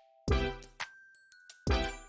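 Background music with sharp, punchy beats and short ringing notes held between them.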